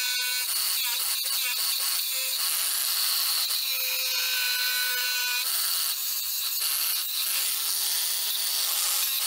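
Cordless angle grinder cutting through a protruding steel coach bolt, a steady high-pitched grinding whine.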